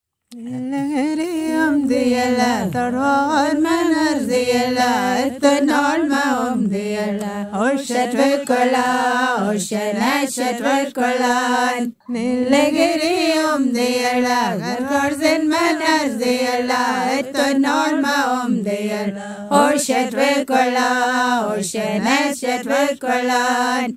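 A woman singing a slow, chant-like melody, unaccompanied or nearly so, with long held notes that bend in pitch. The singing breaks off briefly about halfway through.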